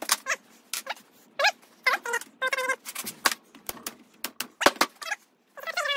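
A quick series of short squeaks, some bending in pitch, mixed with sharp clicks, as a screwdriver works a tight generator mounting screw loose on a 1957 Harley-Davidson flathead engine.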